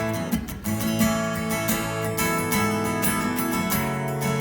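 Worship band playing between sung lines, led by a strummed acoustic guitar over held chords.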